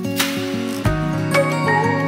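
Background music: a soft instrumental track of sustained notes with a light melody, a brief swell at the start and a low note about a second in.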